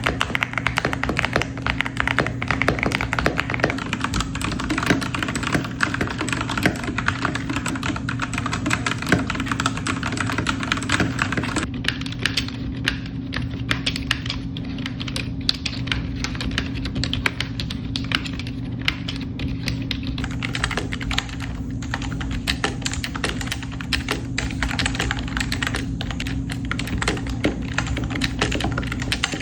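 Fast typing on a mechanical keyboard, a dense run of key clicks and clacks. About twelve seconds in the clicks turn duller and less bright.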